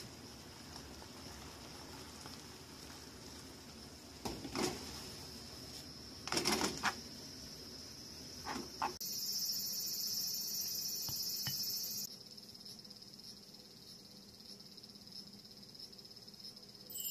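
Tomato and seafood sauce sizzling in a frying pan, with a few short knocks and scrapes as tongs toss spaghetti in the pan. A louder, higher hiss runs for about three seconds around the middle.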